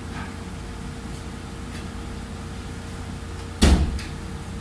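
A door banging shut about three and a half seconds in, with a smaller latch click just after, over a steady low hum.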